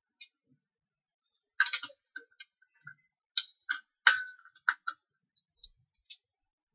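Drill press stand being adjusted by hand: a dozen or so short metal clicks and knocks, scattered irregularly, with the loudest clatters coming in two clusters, near two seconds in and again about four seconds in.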